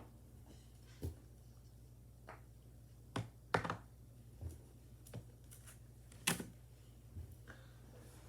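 Small plastic fidget toys being handled: irregular sharp clicks and taps, about nine spread out, over a faint steady low hum.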